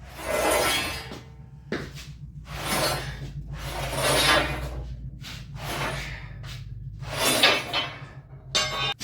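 Steel tubing scraping against the bending jig as it is levered round, in about seven rough strokes, most around a second long, over a steady low hum.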